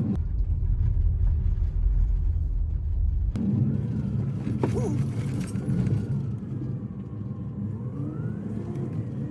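Car running on the road with a low rumble; the sound changes abruptly about three seconds in to a steadier hum.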